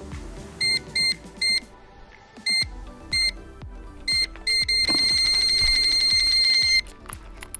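Electronic carp-style bite alarm on a fishing rod sounding: seven short bleeps, then one continuous tone for about two seconds as line is pulled off, the sign of a fish taking the bait and running. Background music plays underneath.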